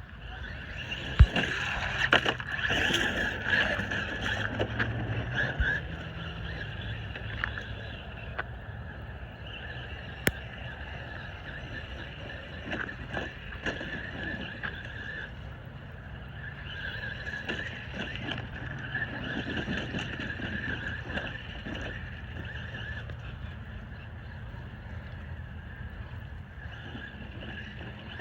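Electric RC monster truck (Traxxas Maxx, brushless) running over rough ground: a steady high whine swells and fades as it drives, with scattered knocks and one sharp bang about a second in.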